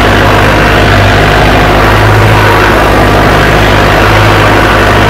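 Mahindra Arjun Novo 605 tractor's 57 hp turbo diesel engine running steadily under load while pulling a harrow through tilled soil, with a thin faint whine above the engine note.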